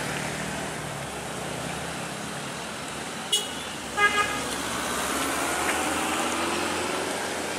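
Hino truck's diesel engine pulling steadily up a steep grade with a heavy machine on its back, its note rising slowly in the second half. About four seconds in there is a short double horn toot, just after a sharp click.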